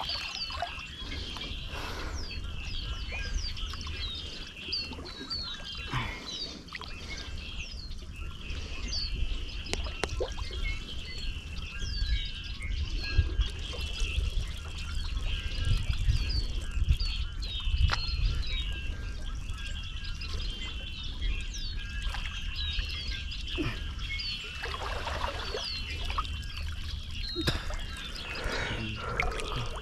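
Many birds chirping and calling, over water trickling and a low rumble of wind on the microphone, with a few soft knocks.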